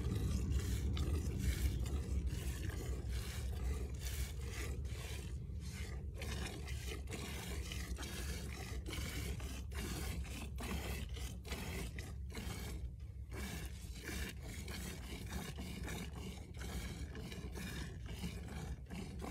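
Streams of milk squirting into an open steel pail as a cow is milked by hand, in a steady rhythm of about two squirts a second, over a steady low rumble.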